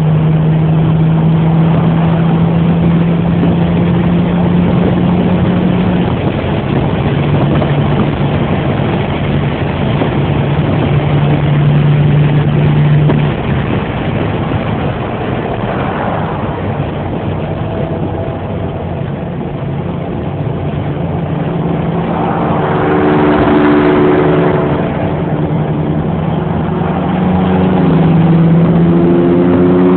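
Car engine running with a steady drone whose pitch holds and then shifts in steps a few times. Rushing noise swells twice, about halfway through and again near three-quarters. Near the end the engine note climbs as it revs up.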